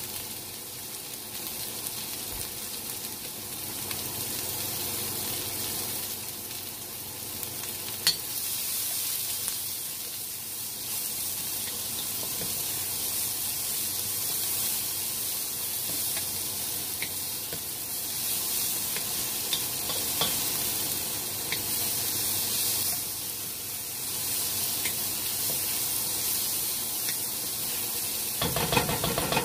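Diced onion and minced garlic sizzling in a wok as a steady high hiss, stirred with a wooden spoon that scrapes and knocks against the pan now and then, with a louder bout of scraping near the end.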